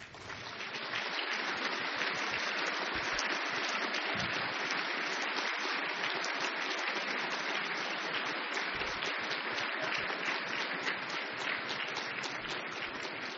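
Audience applauding, swelling up within the first second and then holding steady as a dense clatter of many hands.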